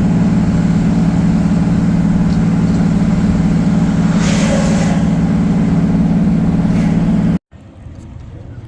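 Heavy diesel engine running steadily with a deep drone. The sound cuts off abruptly about seven seconds in.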